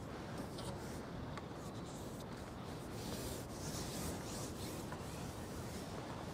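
Faint, steady rubbing and rustling noise with a few soft brief scrapes.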